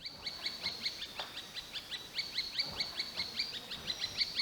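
A small bird calling in a fast, steady series of short, high notes that each slide downward, about six a second.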